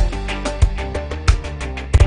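Upbeat background music with a steady drum beat, a kick about every two-thirds of a second, with quick hi-hat ticks and plucked guitar notes.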